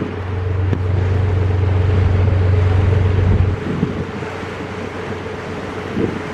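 Tour boat under way, its engine running steadily, with wind rumbling on the microphone that stops suddenly about three and a half seconds in.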